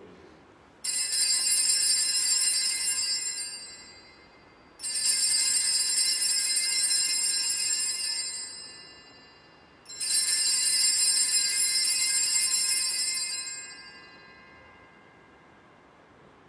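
Altar bells rung three times, each a sudden high-pitched ring that dies away over about three seconds, marking the elevation of the host at the consecration.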